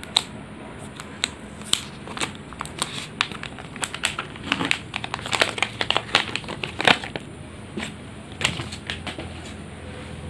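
Thin plastic protective film on a new smartphone crinkling and crackling as it is handled and peeled off, with irregular sharp clicks that come thickest in the middle.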